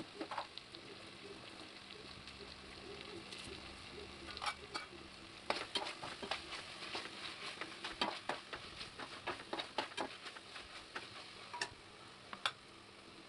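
Onions, tomatoes and spices sizzling in oil in a pressure cooker, with a metal ladle scraping and clinking against the pot as the mix is stirred, the clinks coming thick and fast from about four seconds in until near the end.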